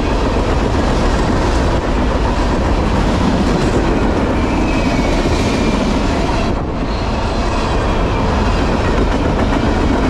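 Empty garbage-container freight cars passing at speed, with the steady loud noise of steel wheels rolling on the rails.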